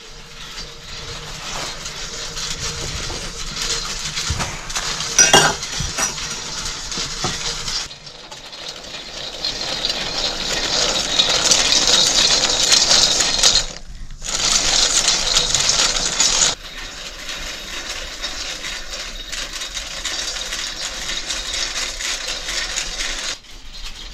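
Acorns rattling and clinking against a metal wok-style pan as they are stirred and tossed with tongs while frying. The rattle goes on in stretches with a few abrupt breaks and an occasional sharp click.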